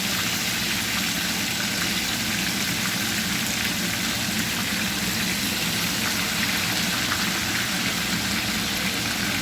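Chicken pieces sizzling as they brown in hot oil in a pot: a steady, even hiss.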